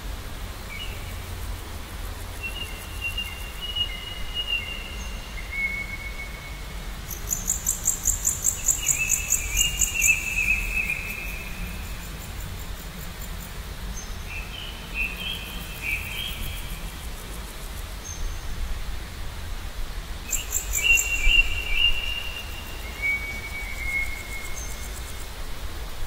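Songbirds singing in repeated phrases of long, sliding whistled notes, joined twice by a rapid high-pitched trill that is the loudest sound, over a steady background hiss.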